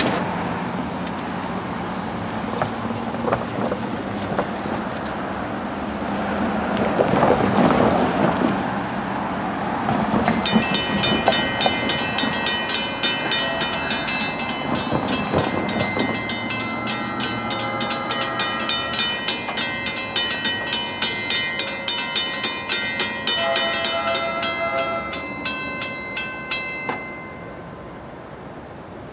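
Road traffic passing over a railroad grade crossing, then the crossing's warning bells start about a third of the way in and ring in rapid, even strokes as the gates come down. The bells stop shortly before the end.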